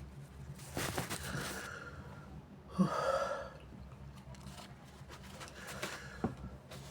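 A person with sinusitis breathing through a congested nose: a breathy sniff about a second in and a louder gasping in-breath about three seconds in, quieter breathing between.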